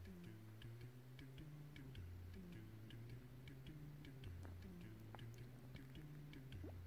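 Quiet background music from a TV: a low melody stepping from note to note, with light ticking percussion several times a second.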